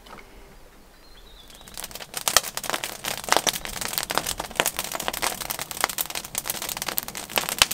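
A small fire, just lit with a match, catching and crackling. The crackles begin about two seconds in and come thick and fast, irregular sharp pops that grow louder as it takes hold.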